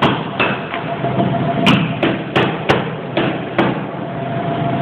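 A hand hammer striking a chisel to chip out a subway car's damaged floor: about eight sharp blows at an uneven pace, ending a little past halfway.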